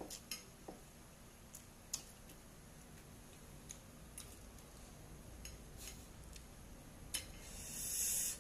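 Quiet eating by hand: faint, scattered clicks and taps as fingers press and gather rice on a ceramic plate. Near the end comes a brief louder wet rustle as the fingers dip into the bowl of fish in vinegar.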